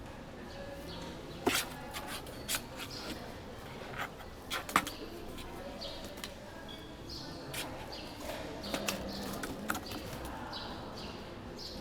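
Outdoor ambience with small birds chirping in short high notes, and a few sharp clicks or knocks.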